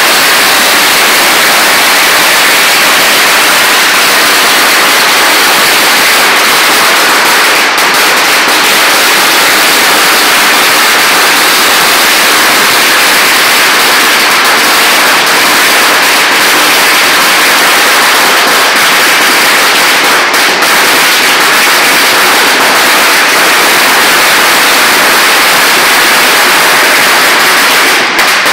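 A long chain of firecrackers (a 20,000-cracker series) going off without a break. The bangs come so fast that they merge into one continuous, loud crackle.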